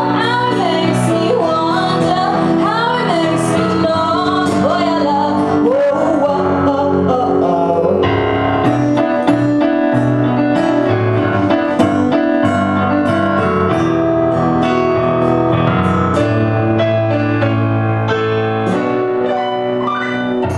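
Live pop song: a woman sings over a Casio keyboard playing piano and an acoustic guitar. About eight seconds in the voice drops out, and the piano and guitar play on without singing.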